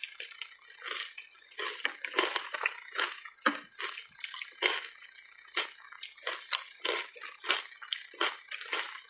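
Close, wet and sticky chewing of ice coated in thick matcha paste and milk powder: squelching and crunching in quick, irregular mouthfuls, several a second.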